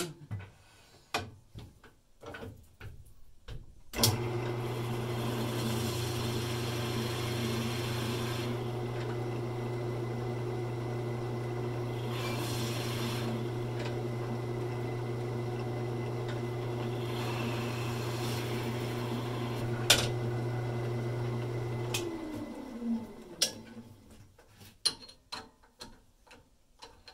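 Lathe motor starting with a sudden hum and running steadily while a pen barrel trimmer cuts into the spinning black acrylic pen blank in three short bouts of hiss, squaring the blank's end flush with its glued-in brass tube. Near the end the lathe is switched off and winds down with a falling tone, with small clicks of handling before it starts and after it stops.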